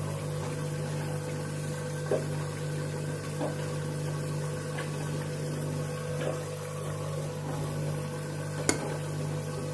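Candy washing machine running: a steady low motor hum with a few light clicks, the sharpest near the end.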